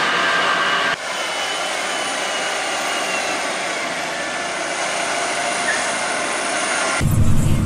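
New Holland T7.315 tractor's six-cylinder diesel working steadily under load while ploughing, with a thin whine gliding over the engine noise. Near the end the sound switches abruptly to a much louder, deeper engine rumble.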